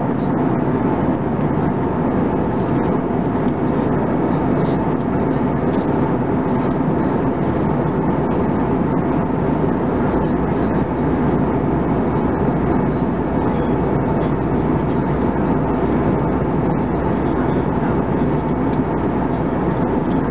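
Steady cabin noise of an Airbus A320-214 at cruise altitude: an even rush of air past the fuselage blended with the hum of its CFM56 turbofan engines, unchanging throughout.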